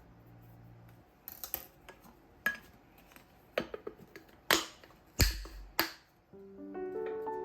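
Plastic food storage containers and lids being handled: about seven sharp clicks and knocks, irregularly spaced, with the loudest two a little past the middle.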